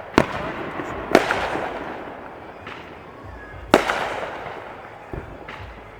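Fireworks shells bursting: three loud bangs, the first two about a second apart and the third nearly four seconds in, with a couple of fainter pops between them. Each bang trails off in a rolling echo.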